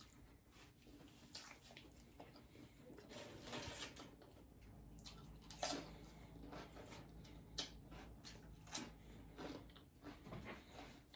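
Quiet chewing of bologna sandwiches and chips, with scattered short crunches and mouth clicks.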